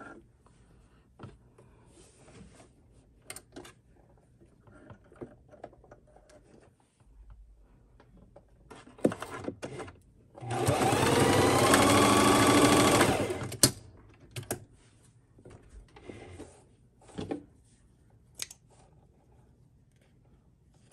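Electric sewing machine running for about three seconds near the middle, starting and stopping abruptly as it stitches a short seam. Light clicks and knocks of fabric handling come before and after it.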